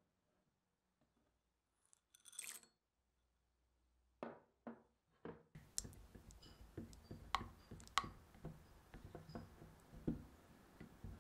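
A silicone spatula stirring dark chocolate into warm cream in a glass Pyrex measuring cup, with steady scraping and light clicks against the glass from about halfway through. Before that it is quiet apart from a brief rustle and a few soft knocks.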